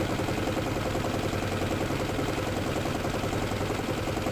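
Boat's outboard motor running at a steady low idle, an even hum with no change in speed.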